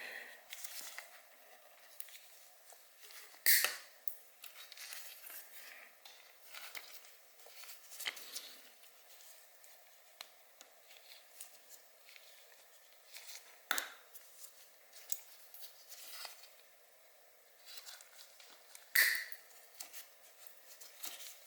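Scattered small clicks and snips of hand work: zip ties being cut off a motorcycle's wiring with cutters, with three sharper snaps, about three and a half, fourteen and nineteen seconds in.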